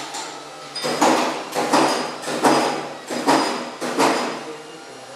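A series of about six hammer blows, each sharp and quickly fading, roughly one every 0.7 seconds.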